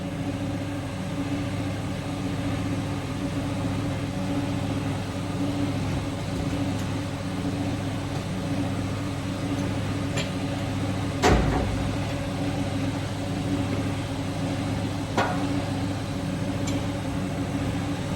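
Steady mechanical hum of workshop machinery running in the background, with a few sharp knocks of tools being handled, the loudest about eleven seconds in.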